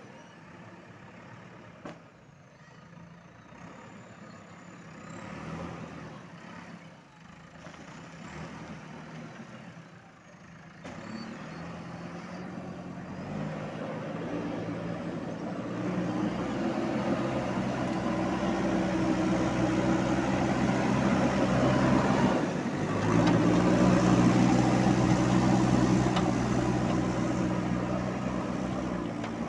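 Diesel engine of a JCB 3DX backhoe loader running, quiet at first and then growing louder and steadier from about a third of the way in as it works, with a brief dip about three quarters through.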